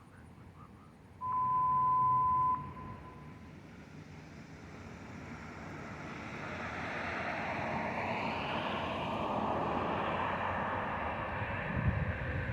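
A single loud, pure, steady beep starts about a second in and cuts off abruptly after about a second and a half; it looks like an edited-in censor bleep. After it, the rushing noise of road traffic slowly swells.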